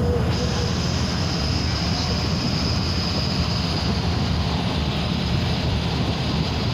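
MSRTC Lalpari bus's diesel engine and tyre noise heard from inside the driver's cabin, running steadily at cruising speed. A faint high hiss joins just after the start.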